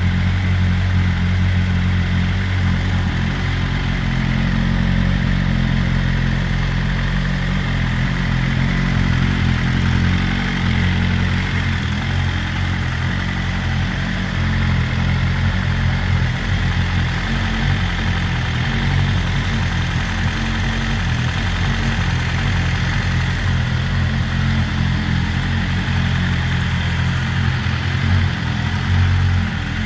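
BMW M1000RR's 999 cc inline-four idling steadily through its Akrapovic exhaust, loud and with no revving.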